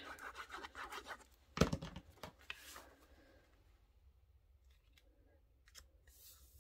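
Cardstock rustling and sliding on a work mat as a white inner panel is glued into a card base and smoothed flat by hand, with one sharp knock on the table about a second and a half in.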